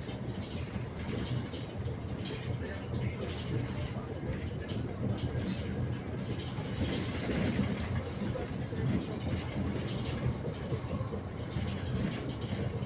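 Cabin noise inside a moving bus: a steady engine and road rumble with light rattling.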